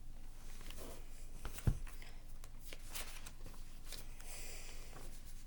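Close handling noise: scattered soft clicks and brief rustles, with one sharper thump about a second and a half in.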